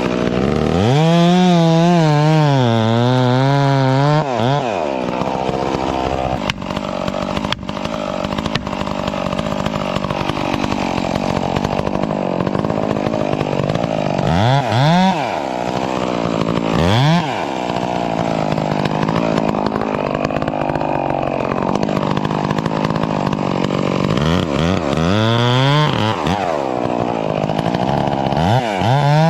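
Stihl MS661 two-stroke chainsaw cutting into a cedar trunk. The engine revs up to full throttle and drops back several times as the chain bites into the wood, and its pitch wavers while the saw is under load.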